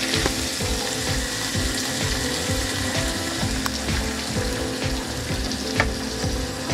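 Shredded cabbage, onions and scotch bonnet sizzling steadily in hot vegetable oil in a frying pan, with a spatula scraping the pan near the start. Raw eggs are poured onto the frying vegetables, with a few sharp clicks along the way.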